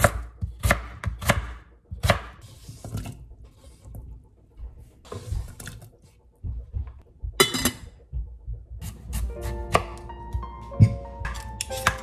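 Kitchen knife chopping sweet potato on a bamboo cutting board: four sharp strikes on the wood in the first two seconds. Around the middle come brief scrapes as the pieces are slid off the board into a pot of water. Soft background music comes in during the last few seconds.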